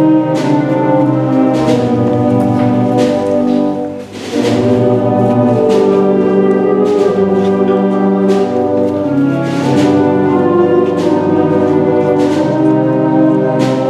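Youth wind band of brass, woodwinds and percussion playing a Spanish processional march: full sustained brass chords over percussion strokes roughly once a second, with a short break in the phrase about four seconds in.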